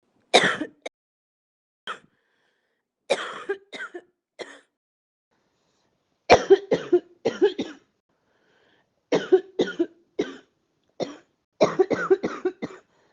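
A person coughing in about seven short fits, each a quick run of one to five coughs, with silence between the fits.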